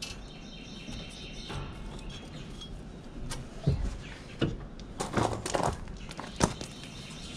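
Scattered sharp metallic clicks and knocks from a socket and half-inch drive ratchet being fitted to the mower deck's belt tensioner, with a cluster of hits in the second half.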